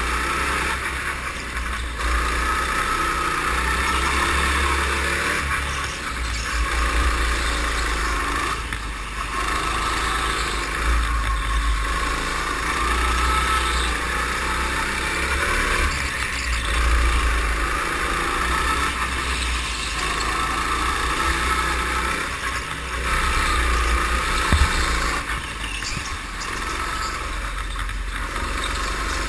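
A go-kart engine running at racing speed, heard from on board, with a low rumble beneath it. The sound swells and eases every few seconds as the kart accelerates along the straights and slows into the corners.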